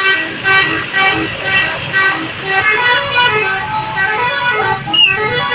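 Bus 'telolet' musical air horn playing a quick melody of short notes that step up and down in pitch.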